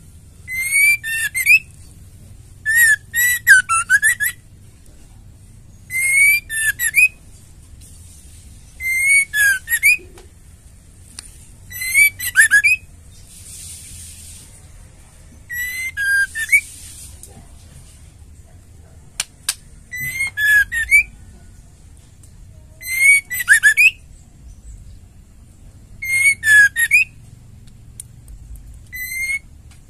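White-rumped shama singing: about ten short phrases of clear whistles and quick trills, one every three seconds or so, with a brief hiss between phrases about halfway through.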